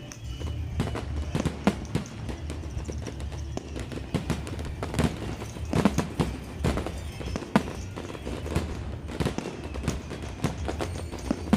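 Aerial fireworks going off: many sharp bangs and crackles at an irregular pace, several a second, some much louder than the rest, over music playing with the display.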